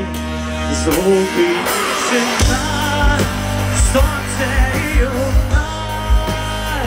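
A live rock band plays through an open-air festival PA, heard from within the crowd, with a wavering melodic line over guitars. The bass and kick drum drop out briefly and come back in about two and a half seconds in with a steady beat.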